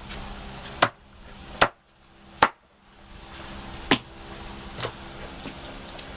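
Sharp chopping strikes, five of them, the first three evenly spaced less than a second apart and the last two after a short pause, over a steady low hiss.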